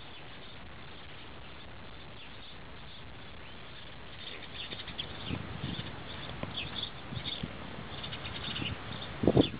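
A sleeping, heavily pregnant alpaca snoring: from about four seconds in, irregular short squeaky high snore sounds with a few low breathy ones, the loudest a brief low one near the end, over a steady hiss.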